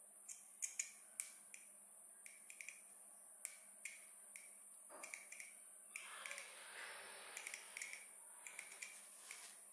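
Electrode of a homemade 12V-battery arc welder sparking against metal: irregular sharp crackles and snaps, with a short sustained sizzle about six seconds in.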